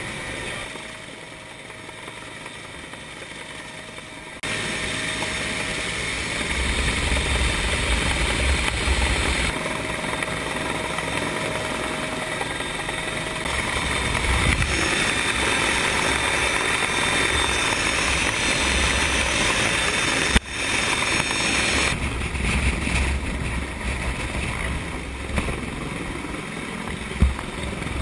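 Rescue helicopter's rotor and engine noise heard close up from the open cabin door, with gusts of wind rumbling on the microphone. The level jumps up a few seconds in, and a sharp click comes about twenty seconds in.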